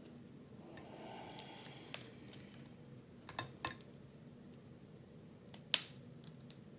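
Close-miked eating sounds from a seafood-boil meal: quiet handling and chewing with scattered small clicks, and one sharp snap near the end, the loudest sound.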